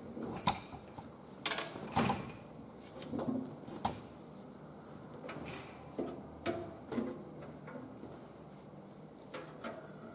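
Irregular mechanical clicks and knocks from an Electrolux W465H washing machine being handled, a dozen or so scattered sharp strikes, some with a short ring.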